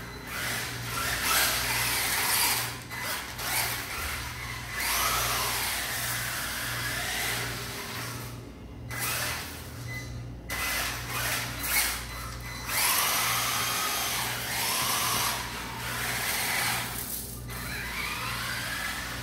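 WLtoys 10428-B2 1:10 four-wheel-drive RC rock crawler driving on a polished tile floor: its electric motor and gearbox whine, rising and falling in pitch with the throttle. The whine cuts out briefly twice about halfway through.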